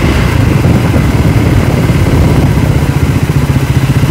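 Triumph Scrambler 400X's single-cylinder engine running steadily with a rapid, even pulse while the bike is ridden, with wind blast on the helmet-mounted microphone.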